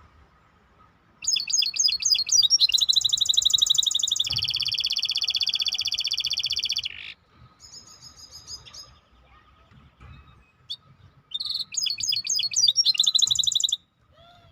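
A songbird singing two phrases of rapid trills: the first, about six seconds long, starts with a run of separate chirps and settles into a long, even, very fast trill before stopping abruptly; a fainter short trill follows, and a second phrase of chirps and trills starts near the end.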